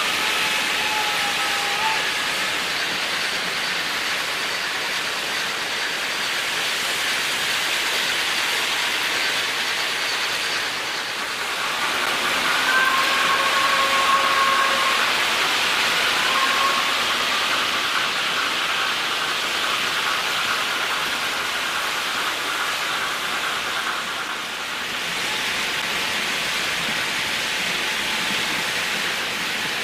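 Märklin H0 model trains running on the layout's track, a steady rolling hiss with a few brief high squeals near the start and again about halfway through.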